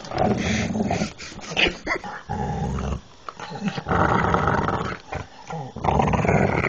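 A dog growling low and deep in repeated bouts of about a second each, with short breaks between them: a sustained warning growl.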